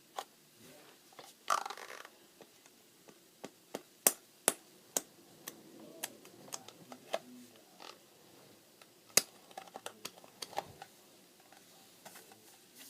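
A nearly empty plastic glue bottle being squeezed and handled: scattered sharp taps and clicks of plastic, with a brief hissing squeeze about a second and a half in.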